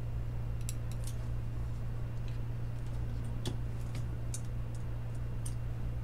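Small, sharp clicks and taps at irregular moments, about six of them, as the partly disassembled iPhone SE and its parts are handled with metal tools, over a steady low hum.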